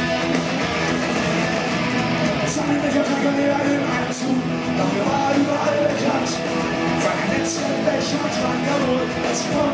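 Punk rock band playing live: distorted electric guitars, bass and drums with a singer's vocals, heard from the audience.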